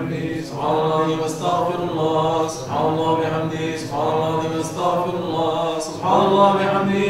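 Devotional chanting of Sufi dhikr: voices repeating a short phrase over and over, about once a second, in a steady rhythm.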